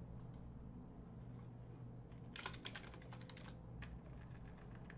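Faint typing on a computer keyboard: a quick run of keystrokes from about two to three and a half seconds in, then a few single key clicks.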